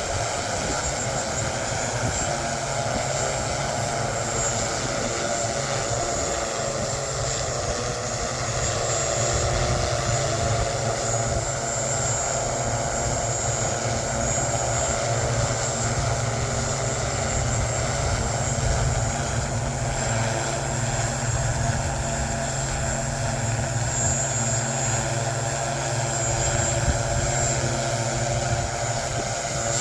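A small electric VTOL drone's motors and propellers whirring steadily in flight, with a constant high whine. Wind buffets the microphone with a low rumble.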